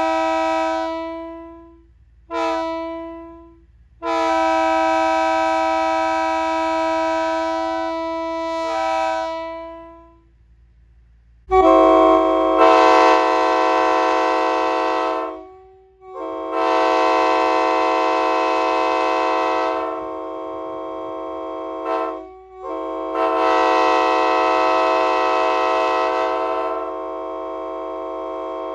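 Multi-chime railroad air horns blowing chords in a series of blasts. First a cleaner chord fades out about a second in, then comes a short toot and a long blast. After a pause about eleven seconds in, a louder horn with a rush of air sounds in three long blasts.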